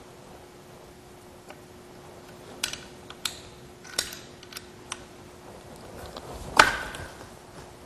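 Scattered small clicks and taps from hands working the short screws out of the bottom of a HIDfast decking tool's magazine, with one louder clack about six and a half seconds in. A faint steady hum runs underneath.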